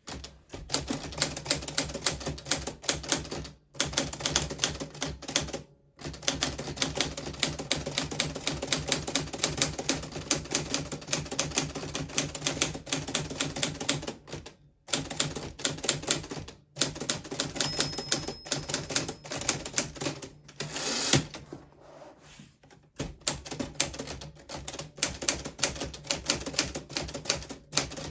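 1940s Smith Corona Silent manual typewriter being typed on: rapid key strikes clacking in runs, broken by brief pauses. About two-thirds of the way through comes one louder, longer sweep of noise, followed by a quieter spell before the typing resumes.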